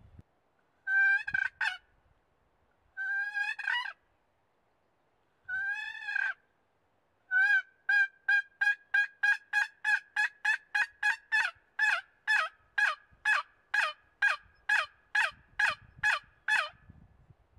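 Turkey yelping: three short calls, then a long run of evenly spaced yelps, about three a second, that stops shortly before the end.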